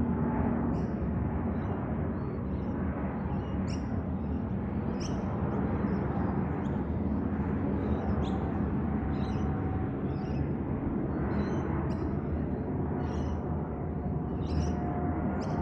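Distant jet rumble of an Airbus A350-941's Rolls-Royce Trent XWB engines as the airliner flies overhead: a steady deep rumble carrying faint tones that slowly sink in pitch. Short bird chirps repeat about once a second over it.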